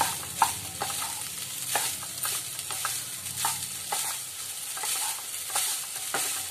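Wooden spatula stirring and scraping fried rice around a non-stick pan, with frequent short knocks of the spatula on the pan over a steady sizzle from the hot pan.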